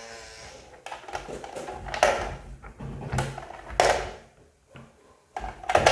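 Plastic pieces of a Phil the Fridge toy game being handled: about five sharp clicks and knocks of hard plastic, spread unevenly, with quieter rustling between.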